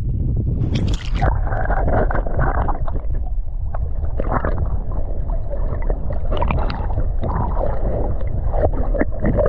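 Water sloshing and splashing in irregular bursts over a steady low rumble of wind on the microphone.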